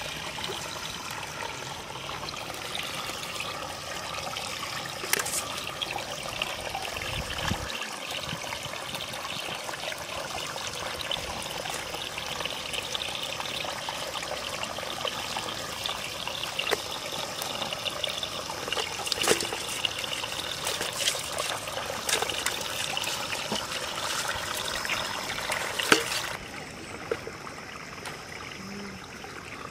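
Shallow muddy water splashing and trickling as hands work through a wet mesh net to pick out the catch, with scattered small clicks and knocks. The sound drops quieter near the end.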